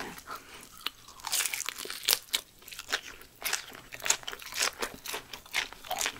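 Close-up crunching and chewing of a bite of crispy battered fried pork (guobaorou) wrapped with fresh coriander, in many short, irregular crunches.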